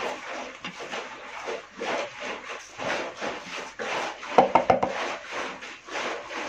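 Hands rubbing and rolling moistened semolina against a wooden platter to form couscous grains: a run of gritty, repeated rubbing strokes. A short, louder clatter comes about four and a half seconds in.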